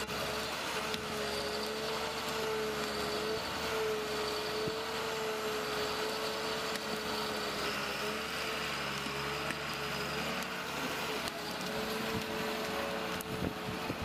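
A heavy machine running steadily, with a constant whine over the engine noise.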